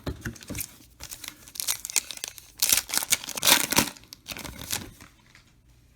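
Crinkling and tearing of a Topps trading-card pack wrapper being ripped open, loudest in the middle and stopping about five seconds in.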